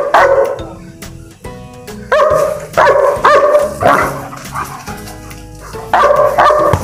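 German shepherd barking in quick runs of short, high-pitched barks: a few at the start, a longer run in the middle and another near the end. Excited play barking at a ball that is being held back, which the owner describes as shouting at the sight of the ball.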